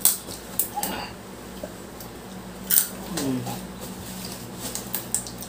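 Crab shells cracking as a seafood boil is eaten by hand: a few sharp cracks, with a couple of brief voice sounds between them.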